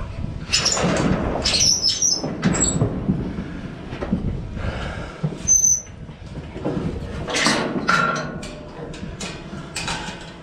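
Steel hog-trap gate and panels at a trailer's loading chute rattling, clanking and scraping as the gate is worked by a rope, in irregular bursts, with a few brief high squeaks.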